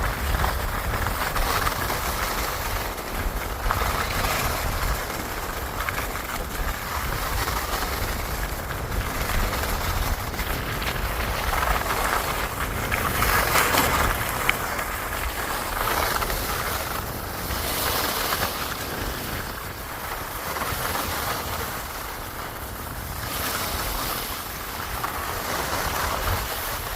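Wind rushing over the microphone with a heavy low rumble, the rushing noise swelling and fading every few seconds, as during high-speed skiing.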